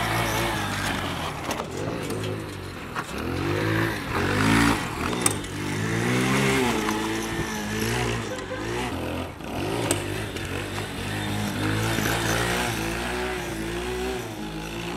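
Small single-cylinder 125cc mini motorcycle engine revving up and dropping back again and again as the bike is ridden and wheelied, then fading as it moves away near the end.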